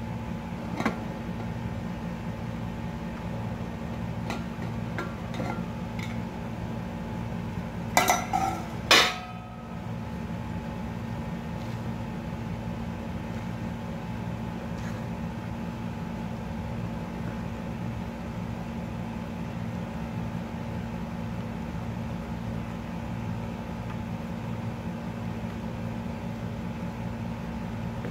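A stainless steel plate clatters twice against a glass bowl, about eight and nine seconds in, with a few lighter clicks before it. A steady low electrical hum runs underneath throughout.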